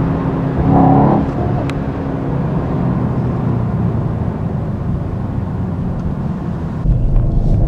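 Mercedes-AMG E63 S 4MATIC+ twin-turbo V8 and road noise heard from inside the cabin while driving in traffic. It swells briefly about a second in, and near the end it jumps abruptly to a louder, deeper rumble.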